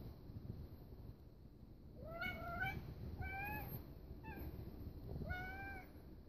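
Cat meowing four times: a longer rising meow about two seconds in, then three shorter meows about a second apart.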